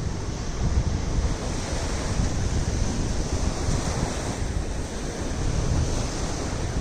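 Sea surf washing on the shore, with wind buffeting the microphone in a steady rumble.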